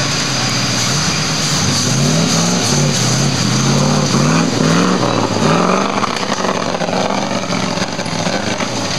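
Flat-fender Jeep's engine revving up and down again and again as it climbs a steep muddy bank, the revs rising and dropping in quick surges for several seconds before settling to a steadier pull.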